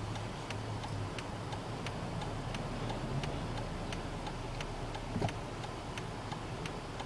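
Turn-signal indicator ticking steadily inside a Jeep's cabin, about two to three clicks a second, over the low hum of the idling engine.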